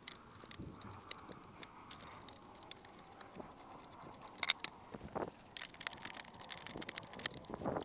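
Faint, scattered small clicks and clinks of a cordless chainsaw's parts being handled while it is switched over to a 20 cm guide bar, with a few sharper clicks near the middle and end.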